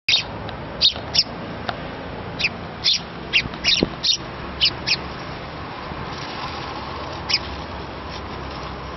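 House sparrows chirping: about a dozen short, high chirps, most of them in the first five seconds and one more about seven seconds in, over a steady background noise.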